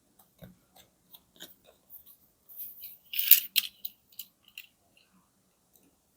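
Plastic blister packaging and card of a die-cast toy car being handled and opened: scattered light clicks and crackles, with a louder crinkling burst about halfway.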